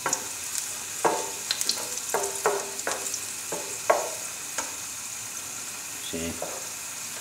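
Sliced garlic and dried chili sizzling in hot olive oil in a pan, a steady hiss. A wooden spoon stirs and scrapes against the pan with a series of short knocks in the first few seconds, fewer after that.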